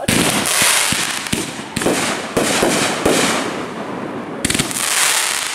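Consumer fireworks going off: a dense hissing crackle that starts abruptly, studded with many sharp pops, and surges again about four and a half seconds in.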